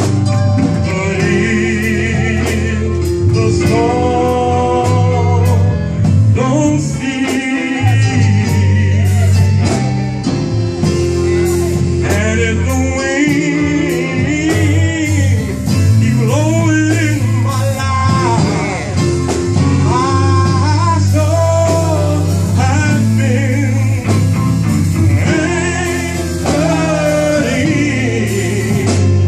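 A man singing a gospel song with vibrato into a microphone, over live band accompaniment with a strong, steady bass line.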